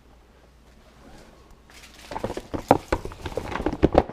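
Close-up handling noise: a quick run of knocks, taps and rubs against the table surface, starting about halfway in, as the camera is set down at table level beside a cookie held by small hands.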